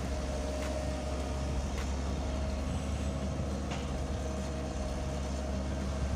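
Hitachi 110-class hydraulic excavator running steadily with a low, even drone as it works on a pond embankment, with a few faint knocks.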